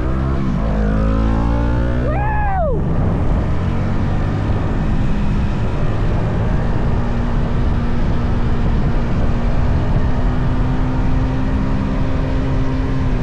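Stock Yamaha XSR 155 single-cylinder engine under way, rising in pitch as it accelerates over the first couple of seconds, then running at a steadier pitch while cruising, with constant wind rush. About two seconds in, a brief loud tone rises and then drops sharply.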